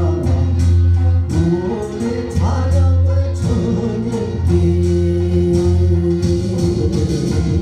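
A man singing a gospel song into a handheld microphone over a backing track with a steady bass line and a regular beat.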